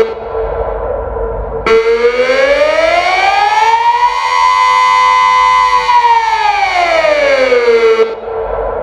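Delta 6 civil-defence siren sounding the Austrian 'Alarm' signal, a rising and falling wail. The pitch climbs to a peak about five seconds in and sinks back, and the sound turns briefly duller and quieter at the low point near the start and again near the end.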